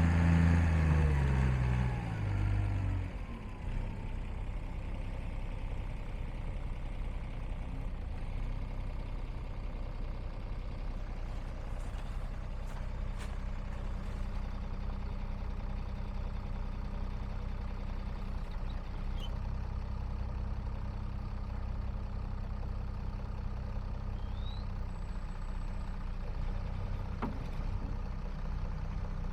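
John Deere 544A wheel loader's diesel engine coming down from raised revs to idle in the first few seconds, then idling steadily.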